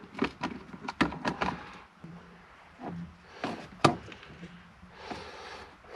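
Clicks and knocks of steering-column parts being handled and fitted back in place, several quick ones in the first two seconds and one sharper click a little under four seconds in, followed by a brief rustle near the end.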